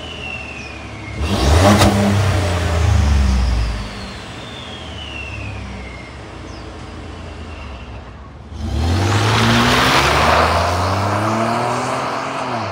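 Exhaust of a Ford F-150's 3.5-litre EcoBoost V6 fitted with new high-flow downpipes, revved at the tailpipe: the engine rises sharply about a second in and settles back after a couple of seconds. About eight and a half seconds in the truck pulls away hard, its pitch climbing as it accelerates.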